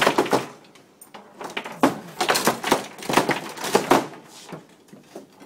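Foosball table in fast play: rapid clacking knocks of the ball against the plastic players and the table, with the rods knocking as they are spun and slammed. A short burst comes at the start and a longer flurry from about two seconds in.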